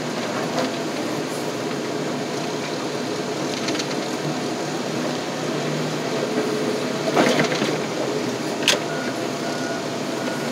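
Loader engine running steadily, heard from inside the cab, with a few short metal clanks and rattles about seven seconds in and again near nine seconds.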